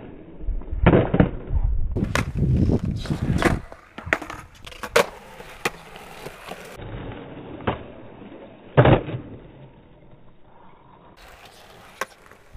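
Skateboard wheels rolling on concrete, rumbling loudest in the first few seconds, then several sharp clacks of the board's tail and deck striking the ground as it is popped and landed, the loudest about nine seconds in.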